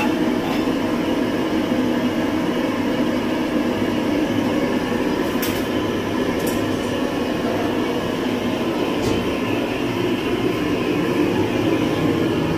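A steady, even noise with no speech, heaviest in the low-middle range, with a few faint clicks about halfway through.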